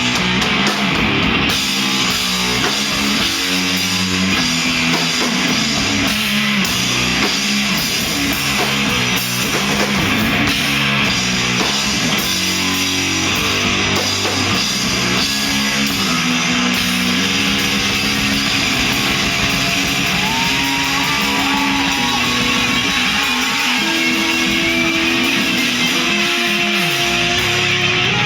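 Rock band playing heavy, guitar-driven music at a steady loud level, with electric guitar to the fore. Near the end come held notes and a note sliding down in pitch.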